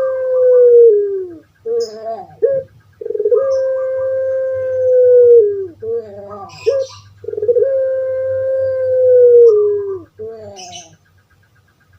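Puter pelung (domestic collared dove, Streptopelia risoria) calling: long drawn-out cooing notes, each held about two and a half seconds and sliding down at the end, each followed by a short stuttering phrase. The call is repeated about every four seconds and stops near the end.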